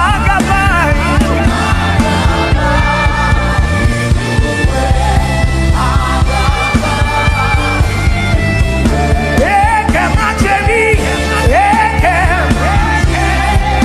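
Gospel worship music: a voice singing wavering, drawn-out lines over a steady, sustained instrumental backing with a low bass.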